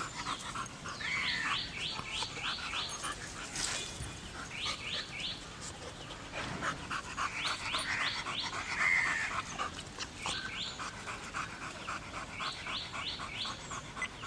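A dog panting hard, in bursts of quick, even breaths, several a second, with short pauses between the bursts.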